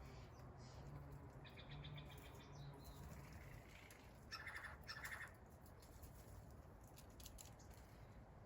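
Faint birdsong in a forest: a short high chirping trill about a second and a half in, then two louder, lower calls close together about four seconds in, over a steady low rumble.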